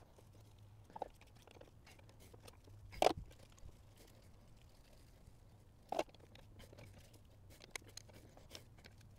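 Scattered clicks and knocks of hand wrenches working on the injectors and injector fuel lines of a VW 1.9 TDI engine. The loudest knock comes about three seconds in and another about six seconds in, with a few small ticks near the end over a faint steady hum.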